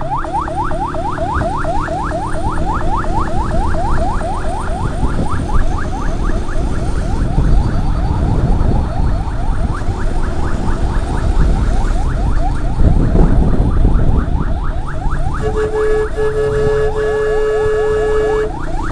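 Electronic emergency siren in fast yelp mode, its rising sweeps repeating about five or six times a second over a low rumble of wind and engine noise. Near the end the yelp gives way for about three seconds to a steady horn tone, broken once briefly, before the sweeps start again.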